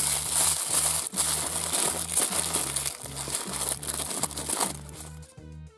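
Packaging crinkling and rustling as a toy surprise is unwrapped by hand. The crinkling fades out about five seconds in, with soft background music underneath.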